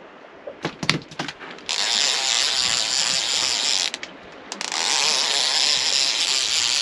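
Multiplier fishing reel's drag screaming as line is pulled off, in two long runs of about two seconds each with a short break between them, after a few clicks in the first second. The angler took the run for a fish but suspects the line may have caught on the sandbank.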